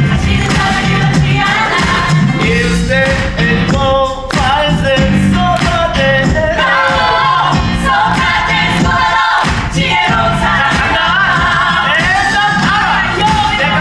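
Musical-theatre cast singing live over a band backing with a steady beat.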